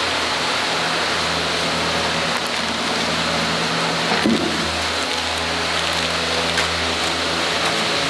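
A steady rushing hiss, with the low notes of background music under it and a single soft knock about four seconds in.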